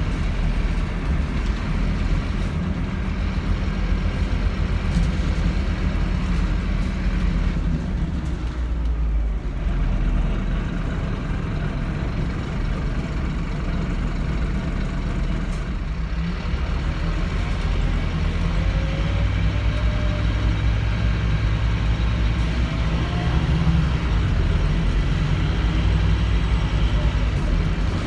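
Scania K230UB city bus heard from its rear seats while driving: the rear-mounted diesel engine and drivetrain running steadily with road noise, with a faint rising whine about two-thirds of the way through as the bus picks up speed.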